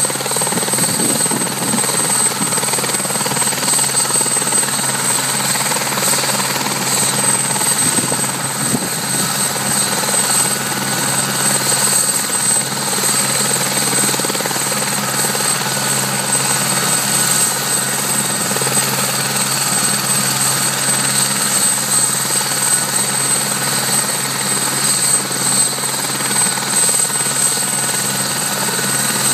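Police helicopter running on the ground with its main rotor turning, a steady rotor and engine sound with a thin high-pitched whine held at one pitch.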